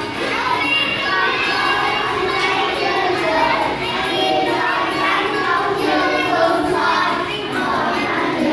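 A class of young children singing a song together, many voices at once.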